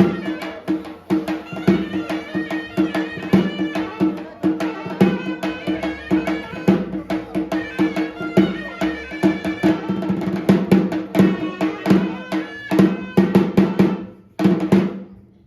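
Traditional music: quick, steady drumming over a held drone with a melody line, breaking off near the end.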